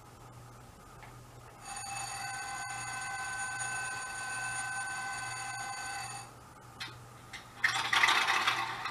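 Sound-decoder horn of a model diesel locomotive: one long, steady, multi-note horn blast of about four and a half seconds, played through the model's small speaker. Near the end comes a louder, noisy burst.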